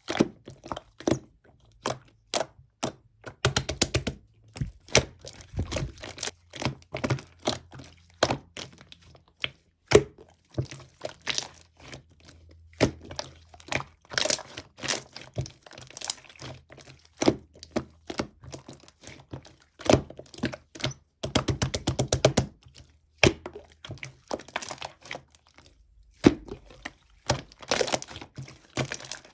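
Slime being pressed, stretched and folded by hand, giving irregular sharp clicks and pops. There are dense runs of rapid crackling clicks about four seconds in and again about two-thirds of the way through.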